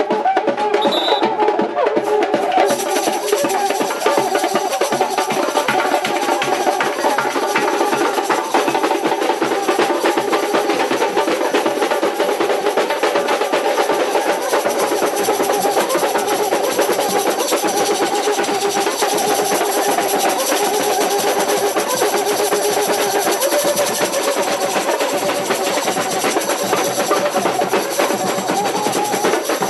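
Samba bateria playing: drums and percussion in a dense, steady rhythm, with a cuíca's wavering tones over it.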